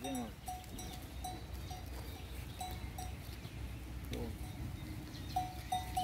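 Bells on a grazing flock of sheep and goats clinking now and then, each a short ring on one pitch. There is a quieter gap in the middle before they ring again near the end.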